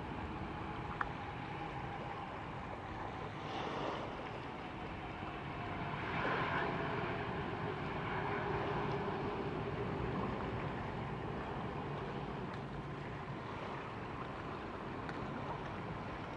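Jet engines of an Airbus A330-300 airliner running as it rolls along the runway: a steady rushing noise that swells a little about six seconds in, with a faint whine that drops in pitch.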